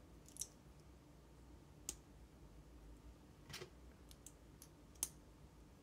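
Faint, scattered clicks of LEGO plastic pieces being handled and fitted together, four sharp ones over a few seconds with a couple of softer ticks between.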